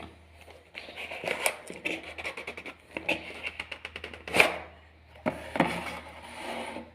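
Jolo chip packaging being handled and opened: crinkling and rustling with quick clicks and taps, and a sharper snap about four and a half seconds in.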